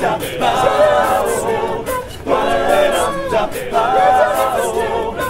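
College a cappella group singing in close harmony, voices only with no instruments, in phrases of about a second with brief breaks between them.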